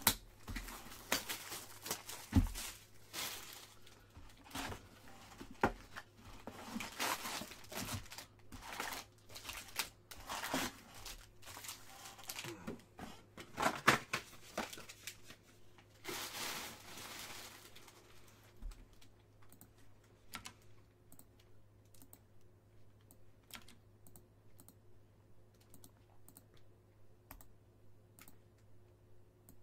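A cardboard box of foil-wrapped baseball card packs is torn open and the packs are pulled out and stacked, giving a busy run of tearing, crinkling foil and small clicks and knocks. About eighteen seconds in, this thins out to sparse light clicks.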